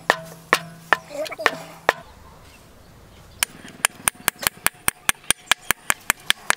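Hand hammer striking a steel bar on an anvil, with sharp metallic ringing blows. A few knocks come about two a second at first, then after a short pause a fast, even hammering of about five blows a second.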